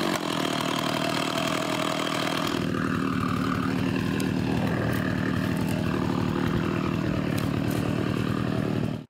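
Stihl 066 two-stroke chainsaw idling steadily on the chainsaw mill after the cut, with a few light knocks of wood in between. The sound cuts off abruptly near the end.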